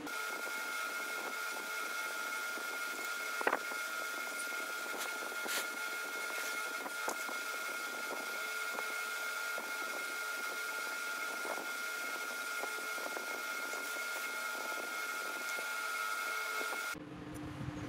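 A small motor running with a steady high whine over a hiss, with a few light clicks and taps, the sharpest about three and a half seconds in. The sound cuts off abruptly about a second before the end.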